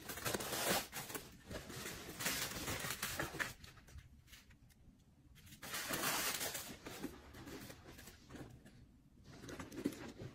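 Tissue paper rustling and crinkling as the packing stuffing is pulled out of a nylon backpack and the bag is handled, in bursts with a quieter pause about four seconds in.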